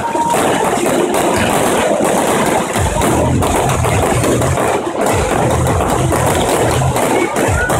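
Fireworks display going off: a dense, unbroken run of crackles and bangs over a low rumble.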